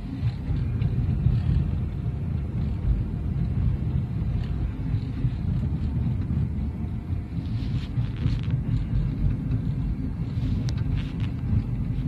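Steady low road and drivetrain rumble inside a moving 2013 Ford Fusion's cabin, with the rear seat folded and the sound deadening removed. No rattle or clack comes from the rear suspension: the play at the rear shock mount that caused it was cured by replacing the shock.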